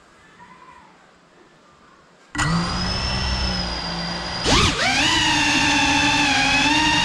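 GEPRC CineLog35 cinewhoop's brushless motors and 3.5-inch propellers: after a faint room hiss, the motors start about two seconds in with a steady high whine. About four and a half seconds in, the throttle is punched with a quick rising swoop, and the whine settles louder and higher as the drone lifts off.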